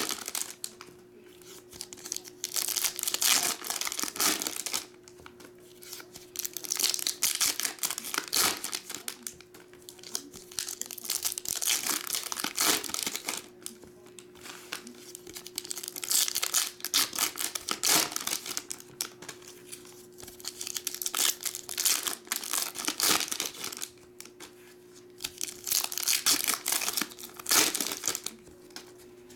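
Foil trading-card pack wrappers of 2022 Upper Deck Skybox Champions hockey crinkling and tearing open by hand. The sound comes in bursts of a few seconds with short quiet gaps between.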